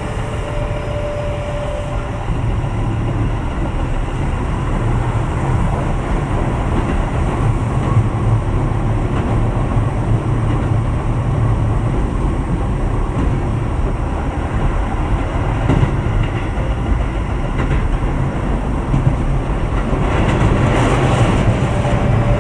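Keio 7000 series electric train running at speed, a steady rumble of wheels on rail. A steady tone from the Hitachi IGBT inverter-driven motors sounds for the first couple of seconds and then stops, leaving the rolling noise, which grows slightly louder near the end.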